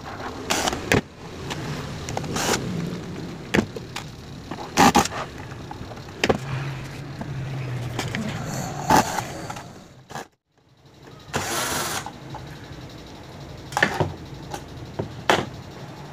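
Cordless drill-driver unscrewing the power supply board from a mixer's metal chassis, with sharp clicks and knocks of screws and metal parts being handled throughout.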